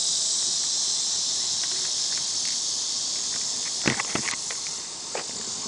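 Steady, high-pitched insect chirring, with a few light clicks and knocks about four and five seconds in from the homemade rocket being handled and loaded with BBs.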